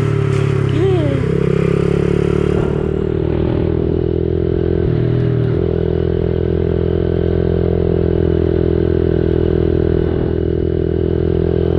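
Dirt bike engine running at a steady, even pitch, as when riding at a constant throttle, with small shifts in tone a few seconds in.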